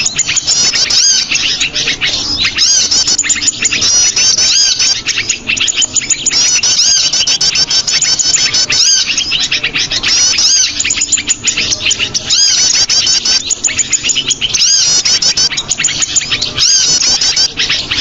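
Small-bird lure call recording: a loud, dense chatter of rapid high chirps and trills, with brighter phrases coming again and again.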